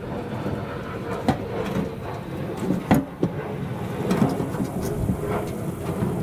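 Irregular knocks and clanks of hand work on a car: tools and metal parts striking as a fuel tank is fitted underneath, over a low steady rumble.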